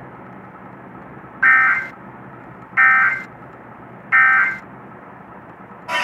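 Emergency Alert System end-of-message data bursts: three identical half-second bursts of shrill digital tones, about a second and a half apart, heard through a TV speaker. They mark the end of the evacuation alert.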